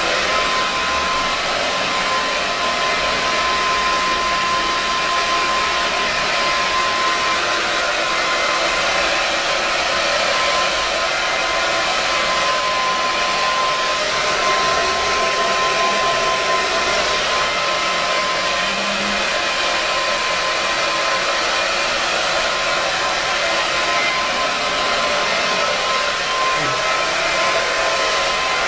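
Blow dryer running steadily on a dog's wet coat after a bath: a constant rush of air with a thin, steady high whine.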